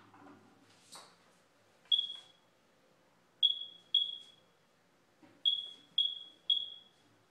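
Short high-pitched electronic beeps on a single tone, six in all at irregular spacing, each cut short with a brief fading tail, like a piezo alarm sounder. A faint knock comes about a second in.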